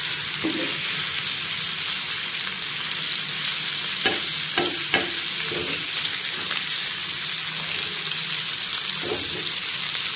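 Sardines and onion pieces sizzling steadily in hot oil on a dosa tawa, with a spatula scraping the griddle a few times as they are turned.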